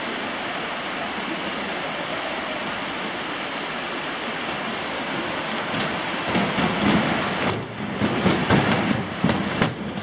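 Stream rushing over rocks, a steady even hiss. From about six seconds in, louder irregular knocks and rustling join it.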